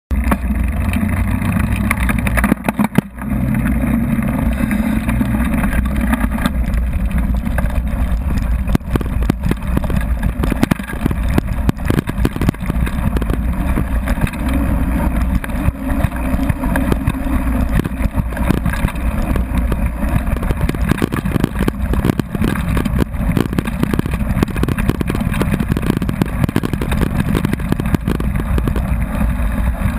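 Mountain bike rolling fast downhill on a rough gravel track: wind rumble on the bike-mounted camera's microphone, knobby tyres crunching over stones and a constant rattle of jolts through the frame, with a brief dip about three seconds in.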